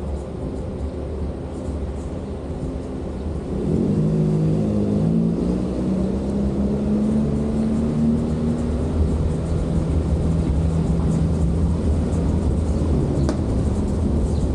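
A motor vehicle's engine running close by, getting louder about four seconds in and holding a steady low note for several seconds before fading, over a constant low rumble.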